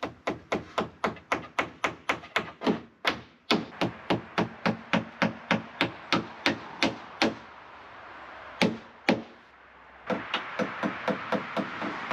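A hammer driving nails into wooden boards: a long steady run of blows at about four a second, a pause, two heavier single blows, then a quicker, lighter run of taps.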